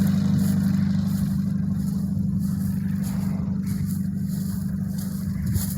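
Zenith light aircraft's piston engine running steadily, slowly fading. The engine has a miss that the filmer cannot cure by changing coils and puts down to a weak valve spring, or to the engine not yet being warmed up.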